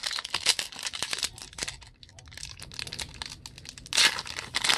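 Foil wrapper of a 2009 Upper Deck Signature Stars card pack crinkling and tearing as it is handled and opened, with a louder stretch of crinkling near the end.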